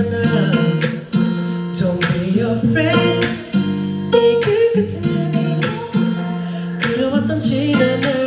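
Pop music with strummed acoustic guitar over a steady drum beat.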